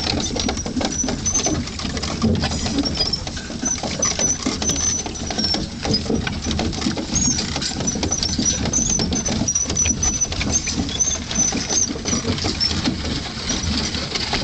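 Clydesdale hooves clopping and iron-rimmed carriage wheels crunching over a gravel road in a steady, dense clatter. High, thin squeaks come and go above it.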